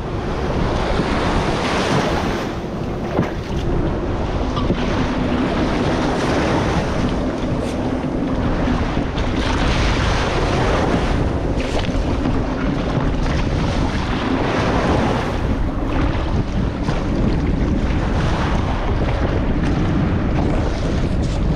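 Wind buffeting the microphone over choppy water and surf, with water splashing against a fishing kayak and its paddle as it is paddled out through the waves after a bumpy launch. The noise surges every second or two.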